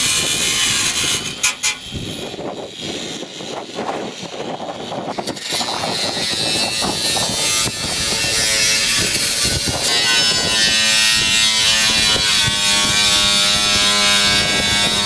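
A motorised power tool running, a buzzing machine noise that steadies into a constant hum about ten seconds in.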